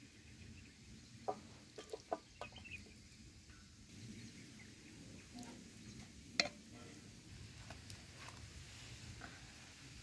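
Faint clinks and taps of a spoon against stainless-steel dishes as thick bean curry is served onto a steel plate: a few clicks in the first two and a half seconds and a sharper one past the middle.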